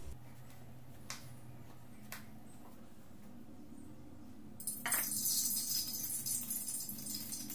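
A couple of light knocks, then about four and a half seconds in a steady hiss starts as cooking oil is poured into a hot wok and begins to sizzle.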